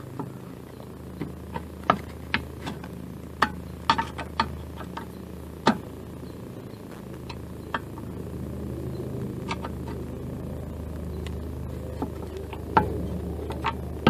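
Screwdriver tightening the screws that hold a Briggs & Stratton lawn mower carburetor to its plastic fuel tank: scattered sharp clicks and taps of metal on screws and plastic, over a steady low hum.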